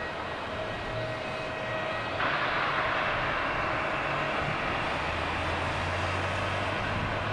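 Jet airliner engines running on an airport apron: a steady rushing hiss that gets suddenly louder about two seconds in, with a low hum joining about two seconds later.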